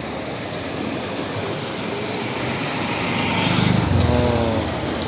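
Steady rushing of the swollen, muddy river under the bridge, with a motor vehicle's engine passing close by. The engine is loudest a little before four seconds in, its note dropping slightly as it goes.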